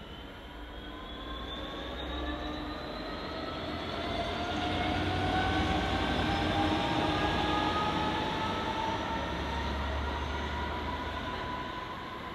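Train passing, with several whining tones rising steadily in pitch over a low rumble, loudest around the middle.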